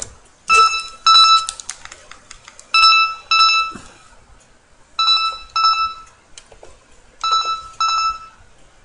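Electronic telephone ringtone: pairs of steady, high-pitched beeps, a pair about every two seconds, four pairs in all. A single sharp click comes at the start.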